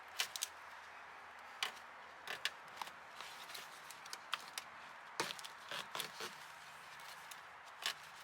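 Scattered light clicks and taps of hands and parts being handled while working inside a car door with its panel off, over faint background hiss.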